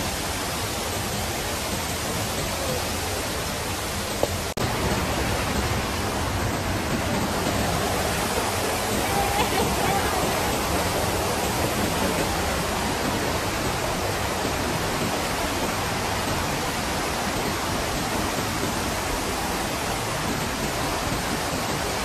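Steady, loud rushing roar of a waterfall's falling water, with a brief break about four and a half seconds in where it comes back slightly louder.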